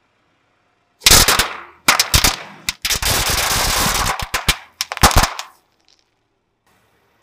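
Pile of bang snaps (snap pops) set off under a car tyre: rapid crackling pops in bursts, starting about a second in, running dense and continuous in the middle, with a last burst at about five seconds.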